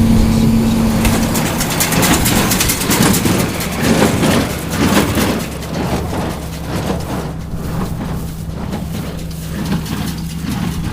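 John Deere 4230 tractor's diesel engine running while baling. Its note drops to a lower pitch about a second and a half in, with irregular clattering over the next few seconds.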